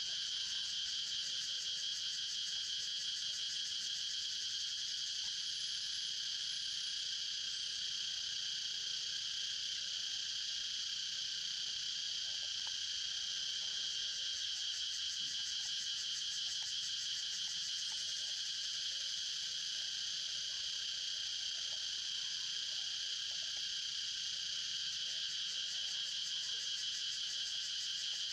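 Steady high-pitched chorus of insects, a continuous rapid trill that does not let up.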